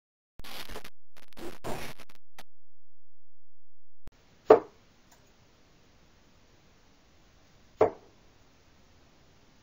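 Two darts thudding into a Winmau bristle dartboard, two sharp single hits about three seconds apart. Before them, a couple of seconds of rough, muffled noise.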